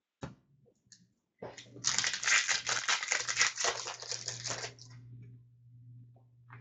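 Wrapper of a Fleer Ultra hockey card pack crinkling as it is torn open and pulled off, lasting about three seconds, then a few faint ticks as the cards are handled.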